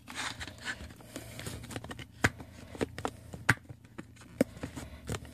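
A plastic CD jewel case and its paper booklet being handled: scattered sharp clicks and taps with soft rustling as the booklet is worked out of the case.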